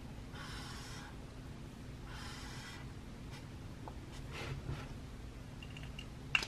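Writing on notebook paper: two longer strokes in the first three seconds, then a few faint short ones.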